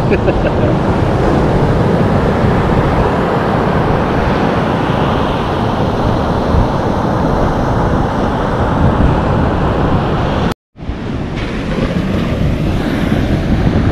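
Wind buffeting the microphone over the rush of breaking surf, a steady loud noise heaviest in the low end. The sound cuts out completely for a split second about ten and a half seconds in, then carries on.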